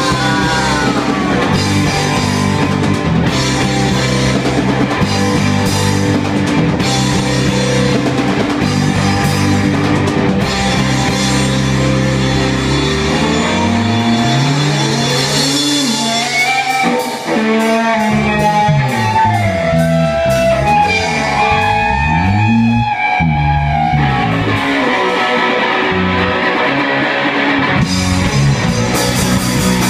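Live punk rock band playing loud, with distorted electric guitar, bass guitar and drum kit. About midway the cymbals thin out and a guitar plays sliding, bending notes, and the full band comes back in near the end.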